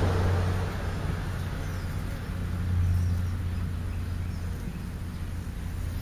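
A steady low motor-vehicle engine rumble that swells about three seconds in and then eases off, with a few faint high bird chirps.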